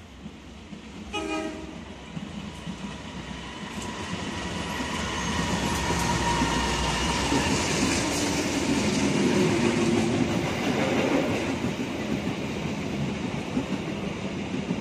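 Passenger train hauled by a CC 201 diesel-electric locomotive running through the station without stopping. A short horn note sounds about a second in, then rumble and clatter of wheels on the rails build up and are loudest around the middle as the coaches go by.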